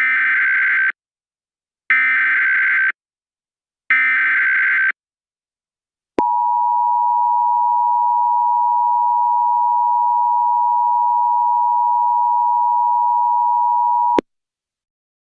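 Emergency Alert System SAME header: three one-second bursts of warbling digital data tones, a second apart. They are followed by the EAS attention signal, a steady two-tone beep held for about eight seconds that cuts off suddenly.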